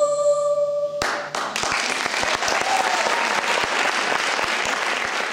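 The music ends on a held note that cuts off about a second in, and an audience breaks into steady applause.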